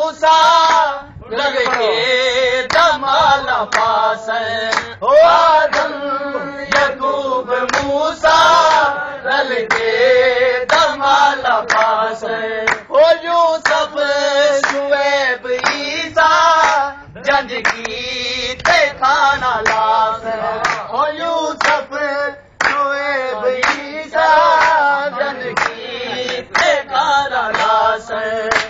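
Men singing a qasida, a devotional praise song, with hand clapping throughout.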